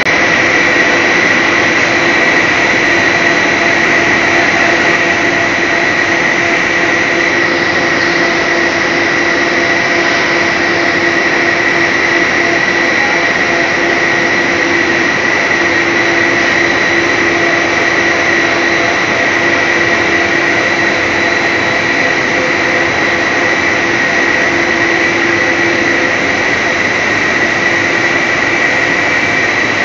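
HDPE/PP woven sack plant machinery running: a steady, loud mechanical noise with a constant high-pitched whine over a lower hum.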